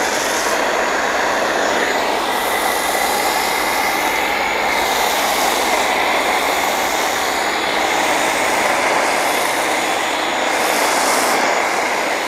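Pressure washer running and a foam cannon spraying a steady, hissing jet of foam.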